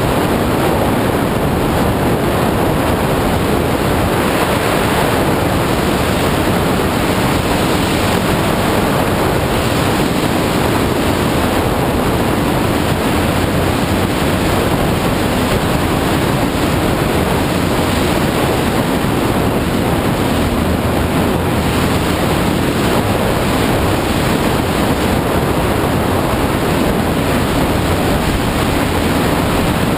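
Dirt bike ridden at speed, its engine running under a heavy, steady rush of wind buffeting the camera microphone.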